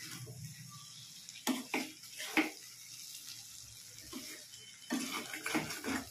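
Spatula stirring dried fish and masala in a frying wok: a faint steady sizzle, with a few short scrapes and knocks against the pan, several in a row near the end.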